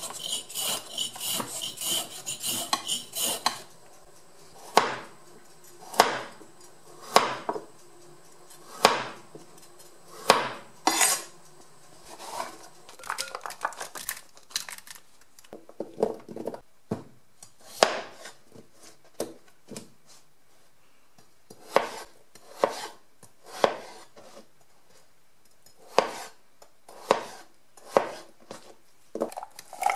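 Chef's knife chopping vegetables on a cutting board: single sharp chops about a second apart, with a quick run of scraping clicks at the start and softer clatter in the middle.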